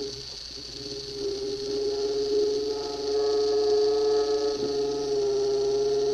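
Small electric motor of an OO-gauge model Class 155 Sprinter running with a steady whine, a lower hum dropping out for most of the time and coming back near the end. It is still not running healthily.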